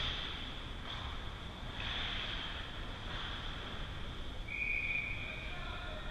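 Ice hockey rink ambience heard from behind the net, with the game far off: a steady high hiss that swells softly now and then, and a short high steady tone about four and a half seconds in.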